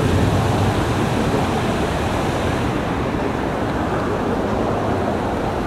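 Water from the Bellagio fountain's jets falling back and splashing into the lake, a steady rushing hiss that eases about halfway through as the jets die down.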